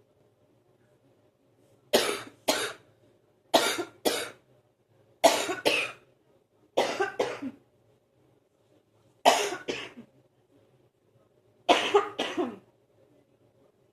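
A person coughing in a morning coughing fit, bringing up phlegm: six bouts of two quick coughs each, about half a second apart, with short pauses between bouts.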